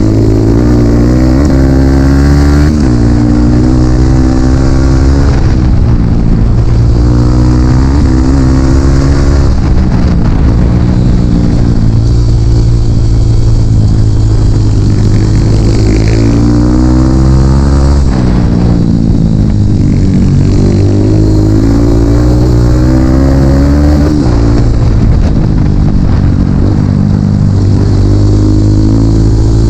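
A dirt bike engine is ridden hard: it revs up and down over and over, its pitch climbing and dropping every few seconds, and it is loud.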